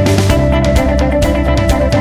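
Background music with a steady beat and guitar, added in place of the footage's own sound.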